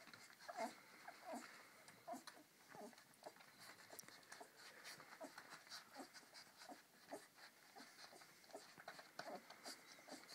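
Litter of 16-day-old borzoi puppies nursing, giving faint, frequent short squeaks and grunts with small smacking clicks of suckling.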